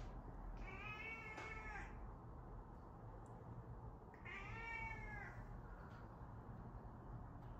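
Domestic cat meowing twice, two drawn-out calls about three seconds apart, each lasting about a second.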